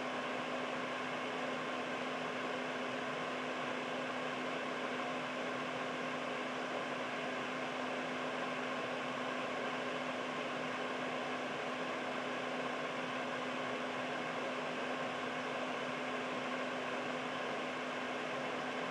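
Air purifier running steadily: an even fan whoosh of moving air with a constant motor hum under it.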